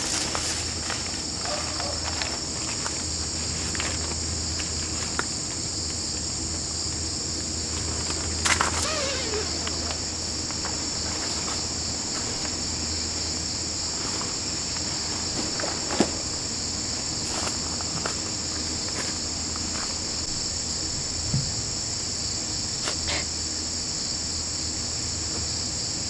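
Steady high-pitched chorus of crickets and other autumn insects, with a low hum underneath. Scattered light clicks and knocks come through it, the sharpest about sixteen seconds in.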